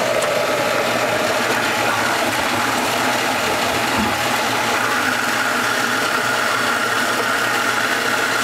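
Garbage-disposal apple grinder's electric motor running steadily with a constant hum, with one brief knock about four seconds in.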